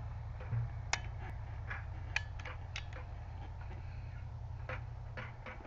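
Scattered small clicks and taps, about eight in all, from hands handling a paintball gun set up to fire .22 pellets at its breech, over a steady low hum. No shot is fired.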